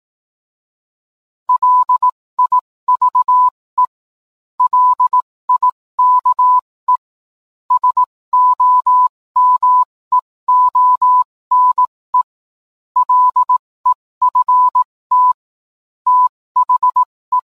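Morse code: a single-pitched telegraph beep keyed on and off in short and long pulses, grouped with short pauses, tapping out a coded message. It starts about a second and a half in.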